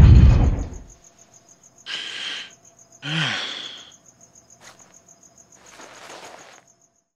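Crickets chirping in a steady rapid pulse, as cartoon night ambience. A heavy low rumble fades out over the first second. Two short noisy sound effects come about two and three seconds in, and all sound cuts off shortly before the end.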